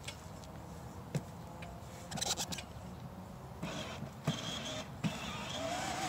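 Knocks and clicks as a child climbs onto a ride-on toy Harley-Davidson motorcycle. About three and a half seconds in, the toy's battery-powered electric motor starts with a steady whine as it drives off.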